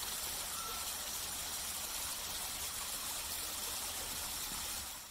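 Steady rush of a small waterfall pouring down a rock face, fading out near the end.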